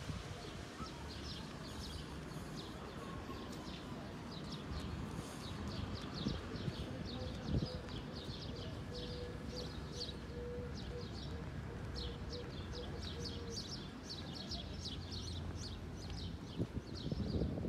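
Small birds chirping: many short, high chirps in quick succession, going on throughout, over a low, steady hum of town background noise.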